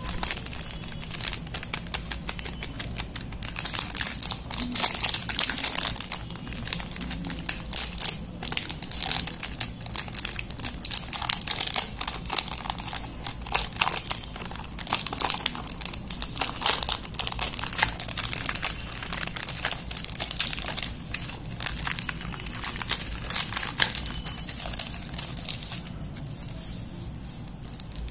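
Cadbury Dairy Milk Silk Bubbly wrapper and its inner foil being pulled open and unfolded by hand: continuous crinkling and crackling of plastic wrapper and foil, quieter for the last couple of seconds.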